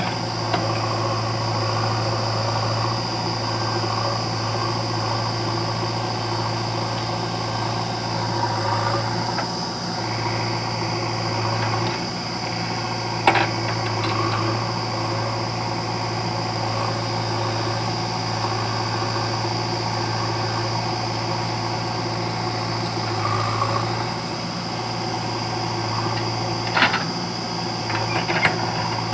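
Diesel engine of a JCB 3DX backhoe loader running steadily under load while the backhoe arm digs soil. A few short, sharp knocks stand out, once about halfway through and a couple of times near the end.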